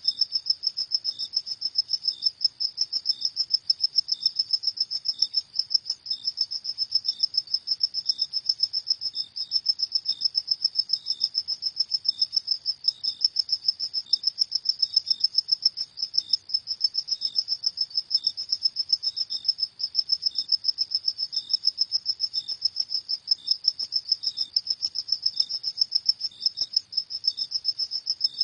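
Crickets chirping at night in a fast, steady, unbroken trill of rapid high-pitched pulses, with a fainter second chirping cricket slightly lower in pitch.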